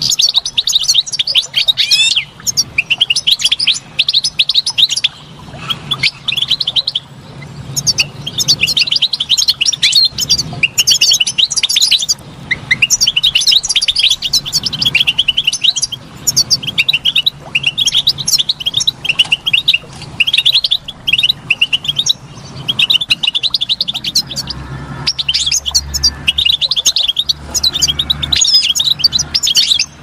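European goldfinch singing: long runs of fast, twittering chirps and trills, phrase after phrase with only brief pauses.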